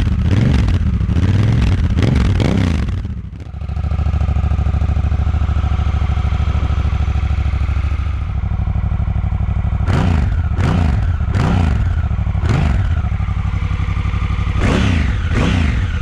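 Honda Africa Twin CRF1000 DCT's parallel-twin engine running on its stock exhaust, with deep idle and short throttle blips. There are a few revs at the start, an even idle in the middle, and a quick series of about six blips from about ten seconds in.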